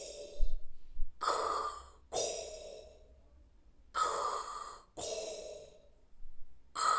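A man's mouth-made imitation of Darth Vader's respirator breathing: slow, breathy in-and-out breaths in pairs, about one breath cycle every three seconds.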